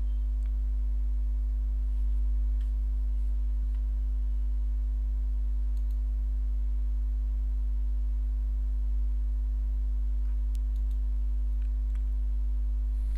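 Steady low electrical hum, a buzz at mains frequency with a stack of even overtones, unchanging throughout. A few faint clicks sit under it.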